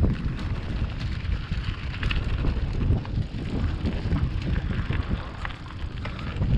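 Bicycle rolling over a rough stony track, the tyres crunching and the frame rattling as a steady uneven rumble with scattered crackles, mixed with wind buffeting the action-camera microphone.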